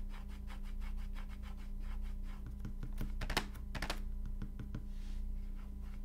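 Irregular clicks and clacks of typing on a mechanical keyboard, with a few louder knocks about halfway through, over a steady low hum.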